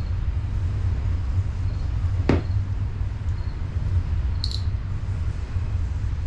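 Steady low hum, with one sharp click just over two seconds in and a faint tick about four and a half seconds in, from hand work on engine intake parts.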